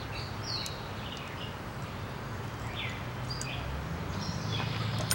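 Small birds chirping on and off over a steady low hum, with a few faint clicks near the end.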